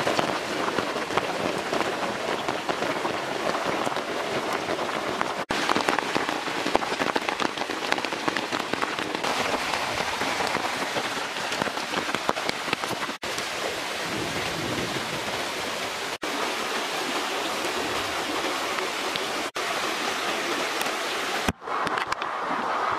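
Steady rain falling, a dense hiss of drops, broken by a few brief dropouts where the shots change. Near the end, a swollen river rushes.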